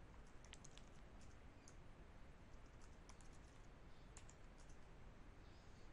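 Faint, scattered clicks of computer keyboard typing over near silence, with a few keystrokes in quick succession about three seconds in.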